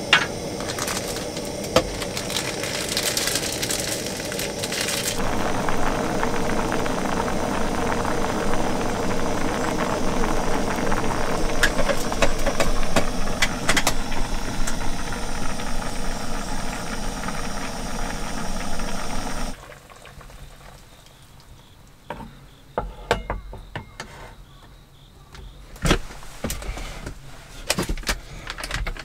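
Noodles boiling in a mess tin on a small gas canister stove: the burner's hiss and the bubbling run steadily, then cut off suddenly about two-thirds of the way through as the flame is turned off. A few light knocks and clatters of handling follow.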